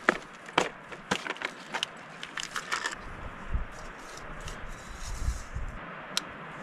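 Clear plastic tackle box being opened and rummaged through: a quick string of sharp clicks and rattles from the lid and loose tackle, thinning to a few scattered ticks after about three seconds.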